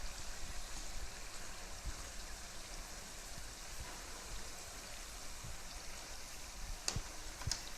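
Murukku deep-frying in hot oil: a steady sizzle, with a few sharp crackles near the end.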